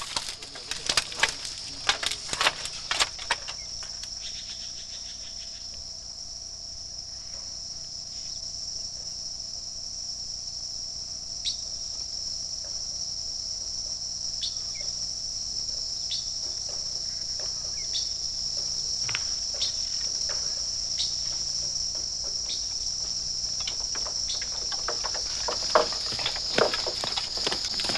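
Insects singing in a steady, high-pitched drone that never breaks. Sharp knocks of knives on bamboo poles come in the first few seconds, and more knocks and clatter near the end.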